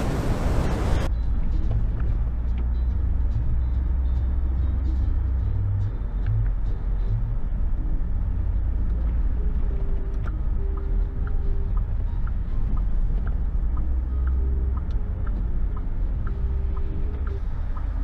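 Car driving, heard from inside the cabin: a steady low rumble of engine and road. A loud rushing noise in the first second cuts off suddenly, leaving the rumble with faint scattered ticks.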